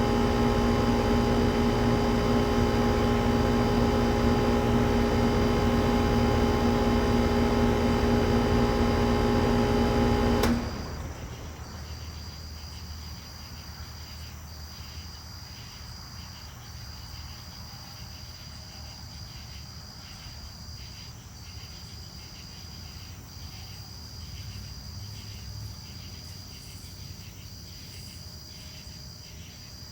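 2008 Goodman GSC13 three-ton air conditioner's Copeland reciprocating compressor and condenser fan running with a steady hum, then shutting off abruptly about ten seconds in. Crickets go on chirping, a steady high trill broken by short regular gaps.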